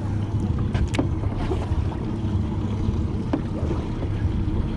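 Ambience aboard a boat at sea: wind on the microphone and water against the hull over a low steady rumble, with a couple of faint clicks.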